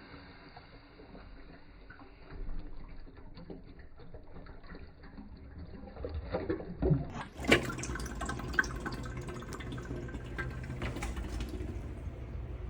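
Water from a 1980 American Standard Afwall toilet flushing and refilling: a muffled running and gurgling that turns fuller and clearer about seven seconds in, with a few sharp splashes.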